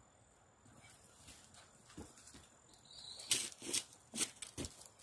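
Footsteps in rubber boots crunching on dry dirt and leaf litter as someone walks down a slope toward the microphone. The steps come in the last two seconds, about two a second, and grow louder as they near. An insect trills faintly and briefly before them.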